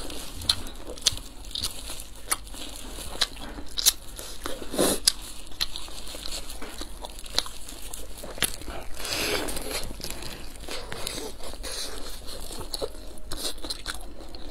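Close-up eating sounds: bites and chewing of crisp pan-fried stuffed flatbreads, with clear plastic food gloves crinkling as the flatbreads are handled and torn open. There are many sharp little crunches and clicks, and a couple of longer rustles.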